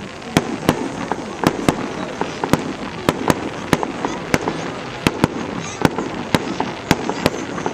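Fireworks going off in a rapid, irregular series of sharp bangs, about two or three a second, over a steady background din.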